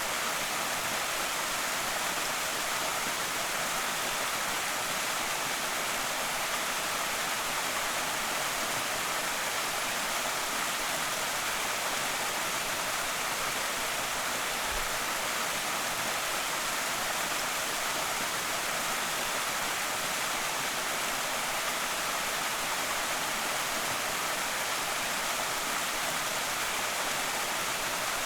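Creek waterfall: water pouring over the falls in a steady, even rush with no change in level.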